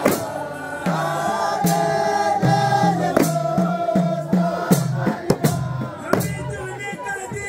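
A group of men chanting a devotional Comorian mawlid song in unison, with sharp percussive hits at irregular intervals.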